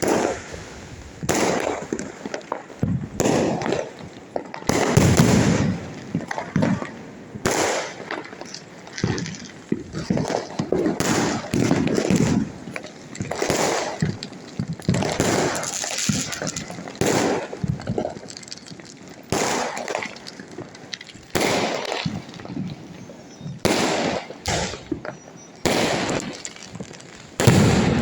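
Diwali fireworks and firecrackers going off one after another, a sharp bang every second or two with crackling tails between them.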